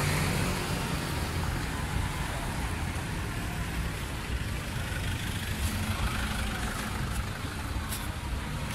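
Street traffic with vehicle engines running, heard as a steady low rumble.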